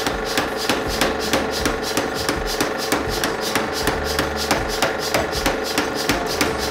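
Mechanical power hammer striking a red-hot steel axe blank in rapid, even blows, about three a second, drawing out the blade. Background music runs underneath.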